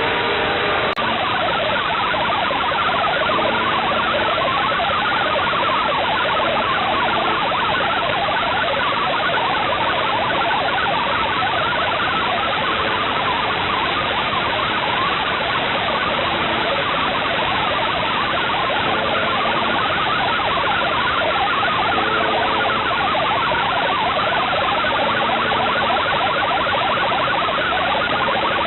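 Shortwave radio static from a receiver tuned to the UVB-76 frequency: a steady, loud hiss with faint short stretches of low tones showing through it now and then.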